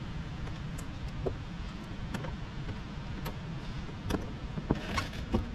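Squeegee working wet paint protection film onto a car bumper: faint scattered scrapes and clicks over a steady low hum, a few more of them from about four seconds in.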